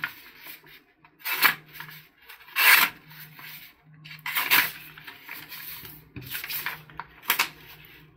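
Multitool knife blade drawn through a material in a series of rasping cutting strokes, a second or two apart. The blade tears more than it slices: it is not very sharp.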